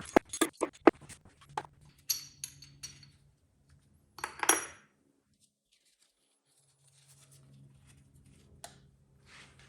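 Loose metal engine parts clinking against each other and a hard surface: a quick series of sharp clicks, then a louder rattling clatter about four seconds in, then one more click.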